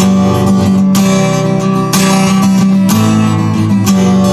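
Acoustic guitar strummed, playing the instrumental break between sung verses of a country-style song, with chords ringing and fresh strokes about once a second.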